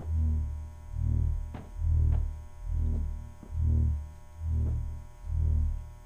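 Low synthesizer bass throbbing in a slow, even pulse about once a second, like a heartbeat, under a faint steady electronic drone: a suspense score. A couple of faint ticks sound about a second and a half in.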